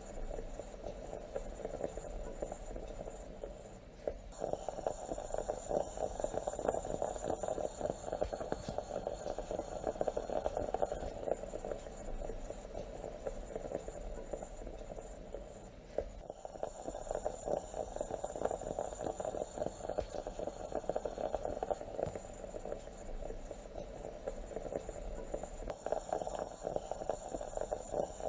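Stovetop moka pot gurgling and sputtering as the coffee is forced up into the upper chamber: a dense, crackling bubbling that turns abruptly louder about every twelve seconds and then eases off.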